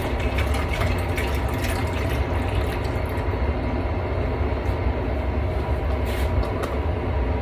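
Steady low rumbling whir of a running kitchen appliance, with a few light clicks over it.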